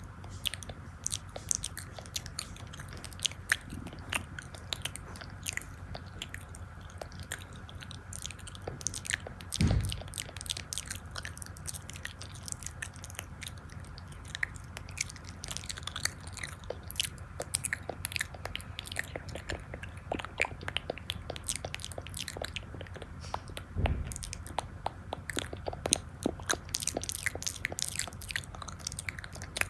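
Close-miked eating ASMR: food being bitten and chewed with many irregular crisp crunches and clicks, and twice a dull low thump.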